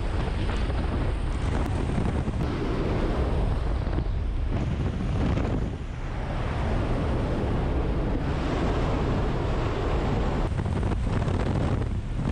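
Steady rush of wind through the open door of a jump plane in flight, mixed with the aircraft's engine noise, buffeting a helmet camera's microphone.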